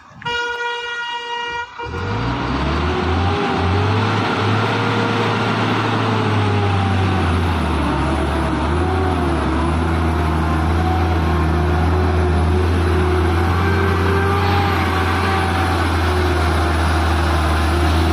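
A vehicle horn sounds for about a second and a half, briefly broken, then a heavy truck's engine comes in loud and runs steadily, with a low drone and a wavering whine over it.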